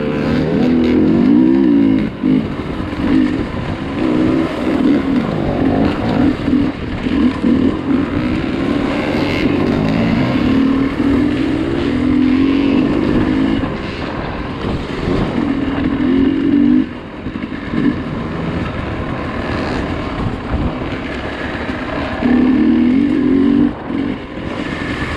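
Dirt bike engine on a trail ride, the throttle opening and closing over and over so the engine note rises and falls in repeated bursts, over a steady rough rush of wind and riding noise.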